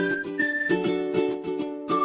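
Background music: a whistled tune with short upward swoops and held notes over a plucked-string accompaniment strummed in a steady, bouncy beat.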